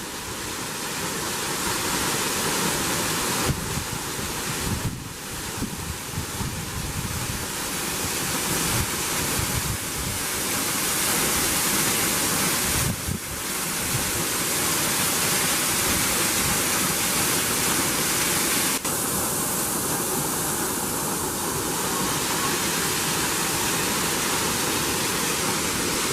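Waterfall rushing: a steady, even hiss of falling water that holds the same level throughout.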